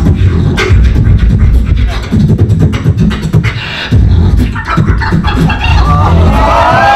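Human beatboxing into a handheld microphone through a PA: deep bass kicks under quick, sharp snare and hi-hat clicks, with a wavering pitched vocal line bending up and down over the beat near the end.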